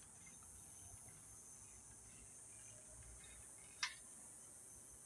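A faint chorus of cicadas in a mesquite tree, a steady high-pitched shrill. A single sharp click sounds a little under four seconds in.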